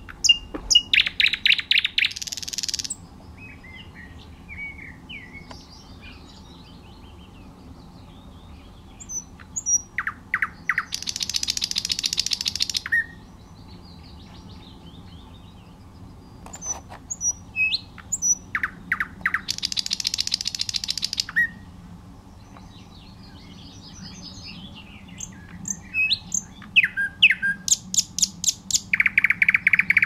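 Thrush nightingale singing: four loud phrases about eight to nine seconds apart, each a series of sharp clicking notes running into a dry rattle, with softer scattered notes between the phrases.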